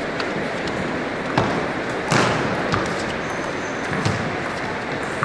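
Table tennis rally: the celluloid ball clicking sharply off bats and table, a string of single clicks roughly a second apart, the loudest about two seconds in, over a steady background hiss.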